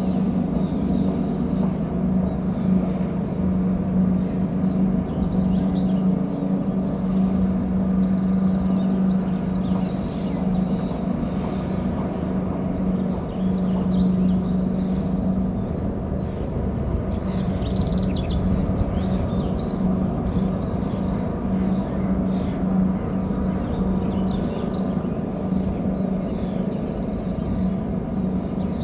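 Outdoor nest-cam sound: a steady low hum under a haze of noise, with a short high bird call repeating about every six seconds.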